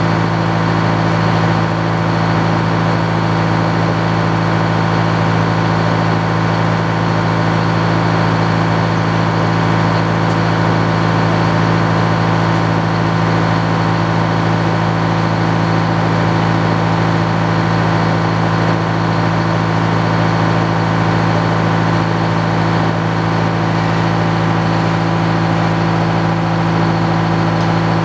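Circular sawmill running steadily, its large head-saw blade spinning free without cutting, a constant low drone.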